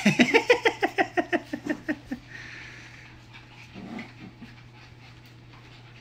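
Pembroke Welsh Corgi puppy giving a rapid string of short, high yips, about six a second and falling in pitch, for about two seconds, then only a few faint sounds.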